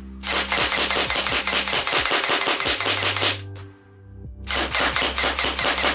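Airsoft replica firing on full auto: two long, rapid bursts of shots with a pause of under a second between them.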